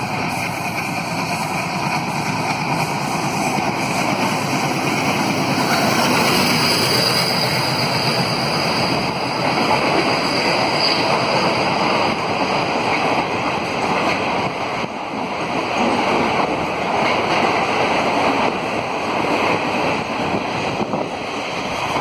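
An express train hauled by an ALCO WDG3A diesel locomotive runs through a station at speed. The locomotive's noise grows over the first several seconds, then the coach wheels on the rails give a long, loud, steady rumble and rush. This eases as the last coach passes.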